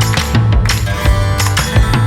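Background music with a steady beat: drums and pitched instruments.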